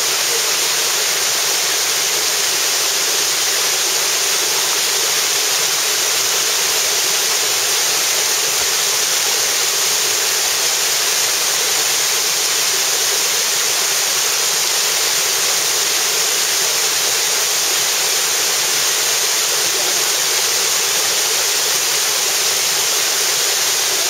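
Waterfall cascading over rock steps: a steady, even rush of falling water.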